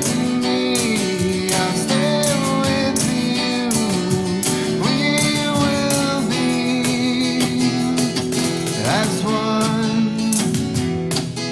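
Acoustic love song: a man singing long held notes over a strummed acoustic guitar.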